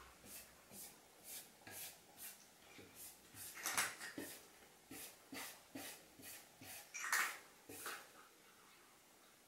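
A tabby cat's forepaw and claws scratching and pawing at a wood-grain door in quick repeated strokes, about two to three a second, stopping shortly before the end. This is the cat's food-burying scratch, a sign that it is refusing its food.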